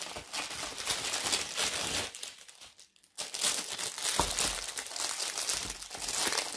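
Bubble wrap and clear plastic film crinkling as a plastic storage case is unwrapped by hand. The crinkling pauses briefly about two seconds in, then starts again.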